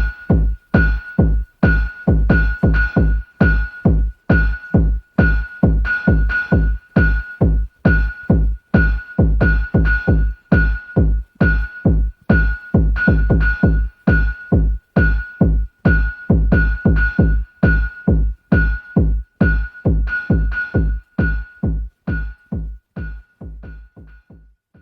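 Electronic techno music: a repeating pattern of short, bass-heavy drum-machine and synth hits, each carrying a high steady tone, about two a second, fading out near the end.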